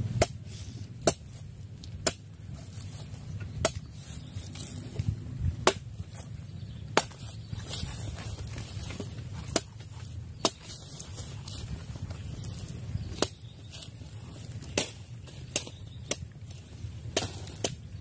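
Sharp, irregular knocks and clicks of a coconut-shell spoon striking and scraping a young coconut's shell as the soft flesh is scooped out, roughly one every second.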